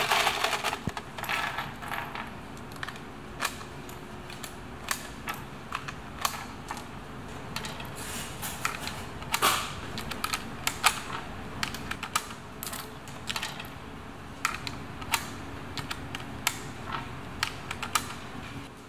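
Irregular sharp metallic clicks and clinks of small metal gun parts being handled on a workbench, over a steady low hum.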